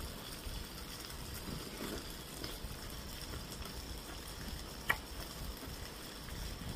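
A woman chewing food with her mouth closed over a steady background hiss, with one sharp click about five seconds in.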